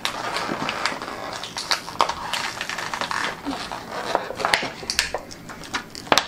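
Hard plastic toy packaging being handled and pried at: a busy run of clicks, rattles and crinkling.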